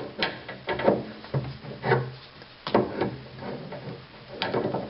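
A wrench tightening the threaded cap back onto a sink faucet's valve body, making a series of short creaks and scrapes, about five of them.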